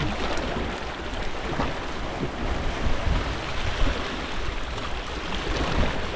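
Sea waves washing at the shore, with wind rumbling on the microphone.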